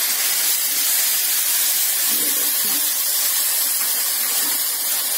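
Milk sizzling with a steady hiss as it hits a hot pan of ghee-fried vermicelli and is stirred in.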